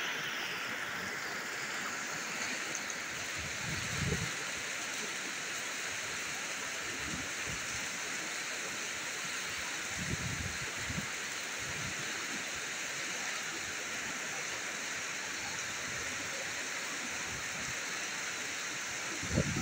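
Heavy rain with rainwater pouring off a roof in a sheet onto the street, a steady rushing hiss. A few dull low thumps come through, about four seconds in, around ten seconds and near the end.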